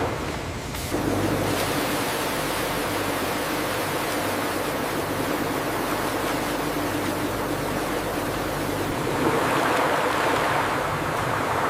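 Steady rushing noise with a low hum beneath it, swelling slightly near the end.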